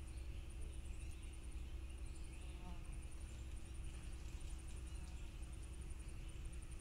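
Faint outdoor background: a steady low rumble and hum, with groups of very high-pitched rapid pulses repeating throughout, like a distant insect trilling.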